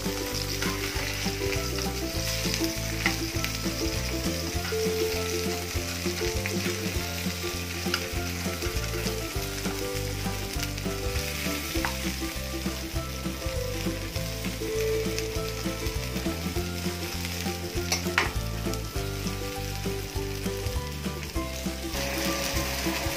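Semolina-and-rice-flour-coated Bombay duck (bombil) pieces shallow-frying in hot oil in a pan, sizzling and crackling steadily. A few light clicks come from a metal slotted spatula turning the pieces to cook the second side.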